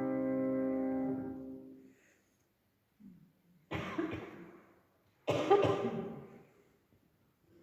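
A grand piano's held chord dies away, then after a pause two bouts of coughing, the second one louder.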